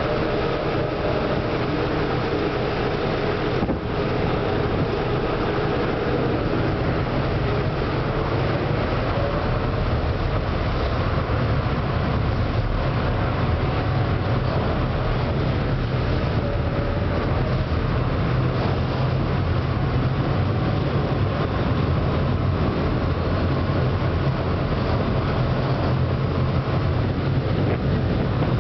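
River boat's engine running steadily under a constant rush of water and air, with a deep rumble throughout, heard on board the moving boat.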